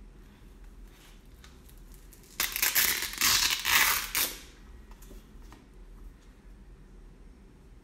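Thin clear plastic face-shield visor and cloth mask crinkling as they are handled: one loud burst of about two seconds near the middle, with faint rustles and ticks around it.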